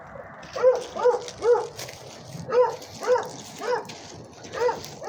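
A dog barking repeatedly, about eight short barks in loose groups of two or three.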